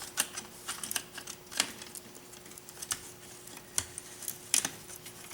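Irregular small clicks and taps of wires and small electronic parts being handled and pushed down into a plastic model bulldozer's body, with a faint steady hum underneath.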